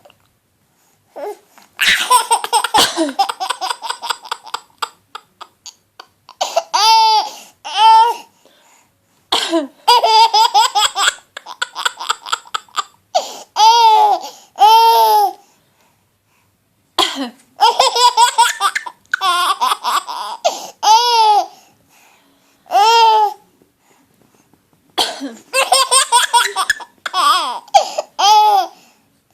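A six-month-old baby boy laughing hard in about four bouts, quick pulsing belly laughs mixed with high drawn-out squeals, with pauses between. Each bout is set off by an adult's coughing.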